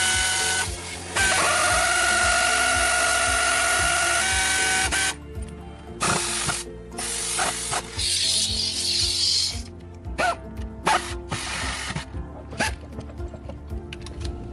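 A power tool running for about five seconds, its whine stepping in pitch twice, under background music; after that, background music with sharp hits.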